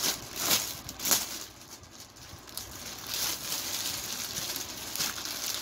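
Clear plastic garment packaging crinkling and rustling as it is handled, with two sharp louder crinkles about half a second and a second in, then a longer stretch of rustling.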